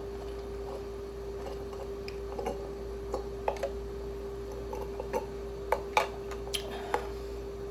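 A person drinking juice, with scattered small irregular clicks starting about two seconds in, over a steady electrical hum.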